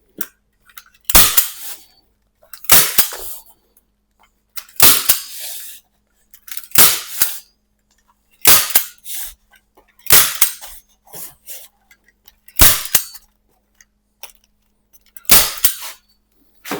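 A series of about eight loud, sharp blows or knocks, one every two seconds or so, each with a short ringing tail.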